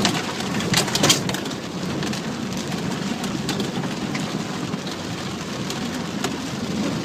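Vehicle driving through fast-flowing muddy floodwater in a rainstorm: a steady wash of water and rain against the body and windshield, with a few sharp knocks in the first second or so.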